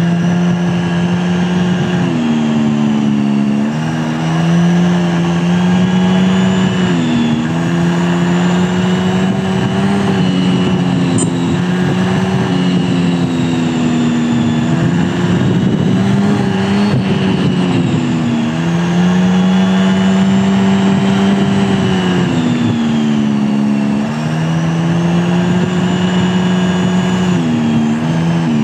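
A vehicle engine running under way, with a steady, even note that dips in pitch and climbs back several times as the engine eases off and picks up again.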